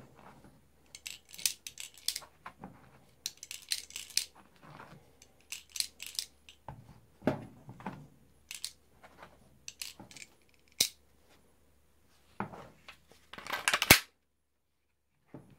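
Steel balls being pressed one by one into the metal magazine of a Walther PPQ T4E .43 pistol: a long run of irregular metallic clicks and clinks. Near the end comes a longer rattle that finishes with a sharp click as the magazine is seated in the grip.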